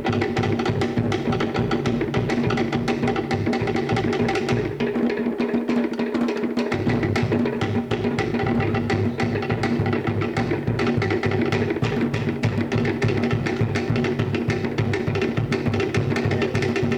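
A Cook Islands drum ensemble playing a fast, driving rhythm on wooden slit drums over a deep bass drum. The deep drum drops out for a couple of seconds about five seconds in, then comes back.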